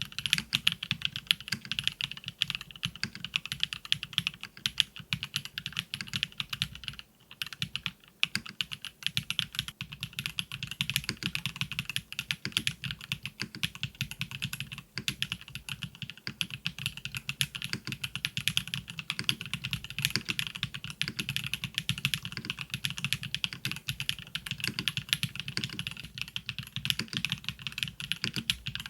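Continuous typing on a KBDfans KBD8X MKIII mechanical keyboard fitted with factory-lubed Kailh BCP linear switches: a dense run of keystrokes with POM stems bottoming out, broken by two brief pauses about a quarter of the way through.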